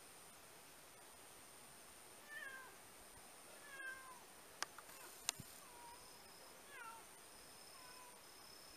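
Dilute calico mother cat giving about five short meows, each falling in pitch, calling for her kittens. Two sharp clicks a little under a second apart come about halfway through.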